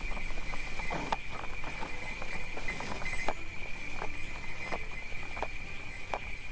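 Horse hooves clip-clopping at an unhurried pace, about one or two clops a second, over a steady high jingle of sleigh bells.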